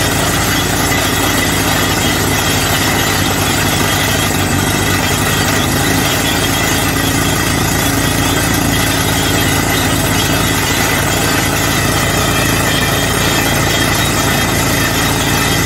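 Truck-mounted borewell drilling rig running steadily while drilling: engine and air compressor with a rapid low knocking, and compressed air blasting rock dust out of the borehole.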